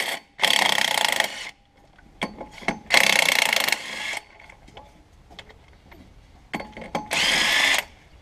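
Cordless power tool running in three bursts of about a second each, a few seconds apart, backing out the bolts that hold the old flywheel to the engine crankshaft.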